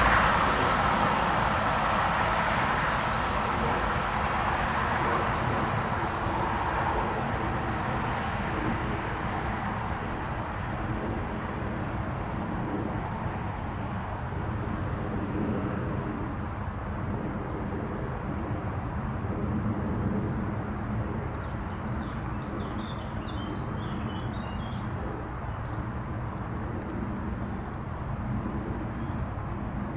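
A high-speed train on High Speed 1 running away into the distance, its noise fading over the first several seconds. A steady low rumble remains after it, with a few faint high chirps about two-thirds of the way through.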